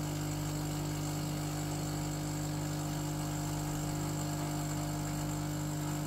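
DeLonghi coffee machine's pump humming steadily while it pushes espresso out through the spout.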